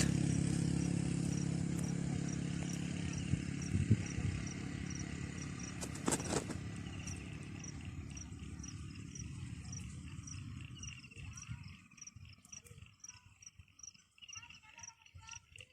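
A passing motor vehicle's engine fades steadily away over about twelve seconds, with an insect chirping high and evenly underneath at about two or three pulses a second. A sharp click comes about six seconds in.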